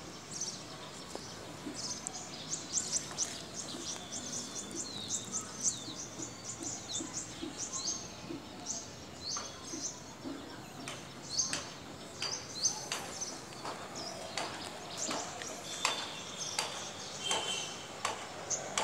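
Small birds chirping, short high chirps repeated in quick runs over a faint steady background hiss.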